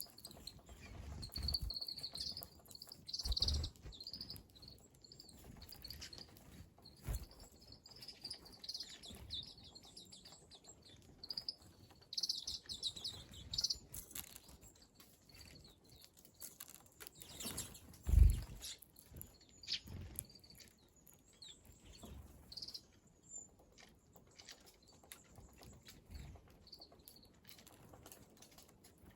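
Small wild birds chirping in quick, high-pitched twitters, busiest in the first half. Occasional low thumps and bumps come through, one much louder than the rest about eighteen seconds in.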